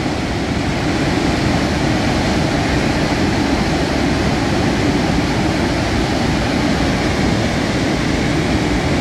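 Steady, loud roar of a muddy flash-flood torrent rushing down a mountain stream bed.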